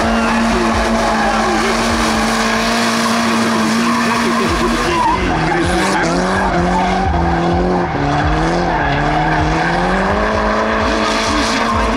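Nissan 200SX drift car's engine held at high revs with its rear tyres spinning and screeching through a drift. The revs hold steady at first, drop and waver from about five seconds in as the throttle is worked, and climb again near the end.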